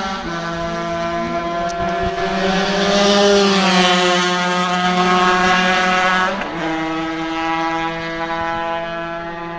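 Racing motorcycle engine held at high revs as the bike passes along the road, its note rising, then dropping steeply about six seconds in as it goes by, before carrying on at a lower, steady pitch.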